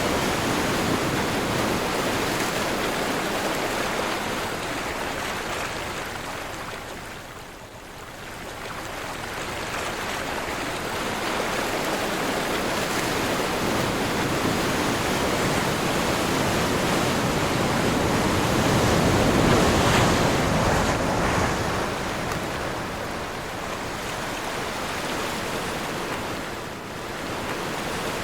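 Ocean waves surging and washing in wind, with a lull about a quarter of the way in and a swell that builds to its loudest about two-thirds of the way through before easing.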